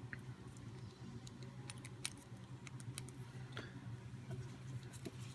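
Faint, scattered light clicks of a lock pick working the wafers of an Illinois Duo padlock, over a steady low hum.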